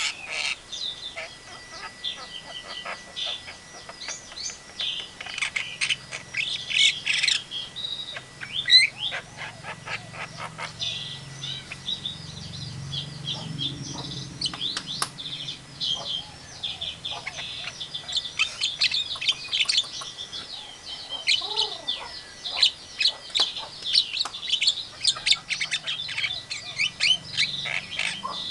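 Javan myna (jalak kebo) calling: a busy, near-continuous run of rapid chirps, short whistles and harsher squawks.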